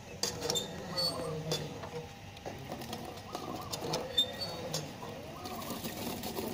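Hand-operated well pump being worked up and down, giving irregular squeaks and clanks from its handle and mechanism with each stroke.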